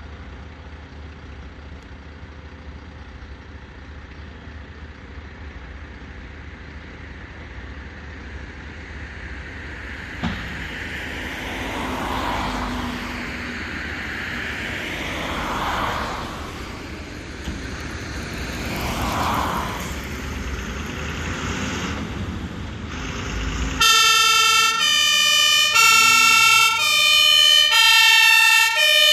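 HLF 20 fire engine's engine running, getting louder from about a third of the way in as it moves off. About five-sixths of the way in its two-tone siren (Martinshorn) starts, loud, alternating between two notes.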